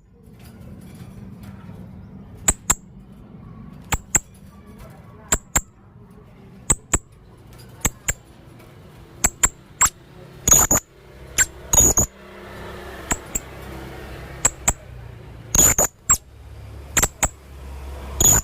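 Male blue-crowned hanging parrot (serindit) calling: short, very high-pitched chirps, mostly in pairs, repeated about every second or so, with a few louder calls in the second half.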